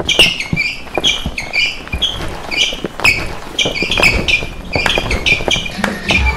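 A loud dance-party crowd claps in a quick, steady rhythm and shouts, with music playing faintly underneath.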